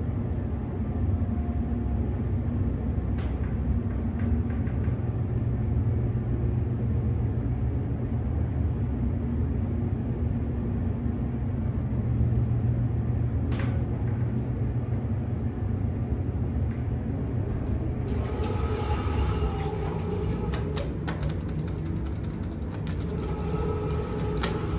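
Hydraulic elevator car travelling up, its ride a steady low rumble. About two-thirds of the way through, a run of clicks and rattles joins in.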